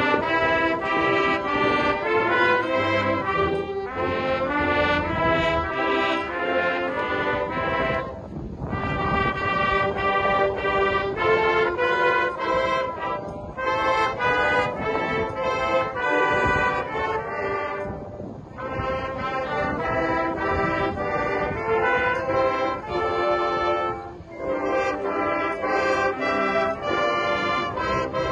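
Marching band brass and winds playing the school's alma mater, in long held chords and phrases with short breaks between them.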